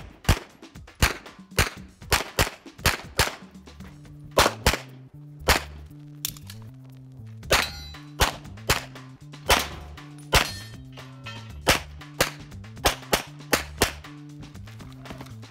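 A fast string of 9 mm pistol shots from a Canik TP9SFx, many fired in quick pairs, with steel targets clanging and ringing when hit.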